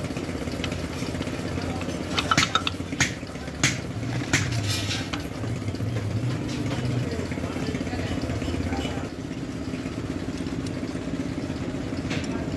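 An engine runs steadily in the background. About two to five seconds in, metal tools and hub parts clink sharply several times.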